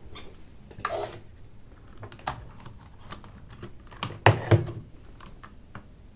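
Irregular small clicks and knocks of hands handling hardware on a workbench, with a louder pair of knocks about four seconds in.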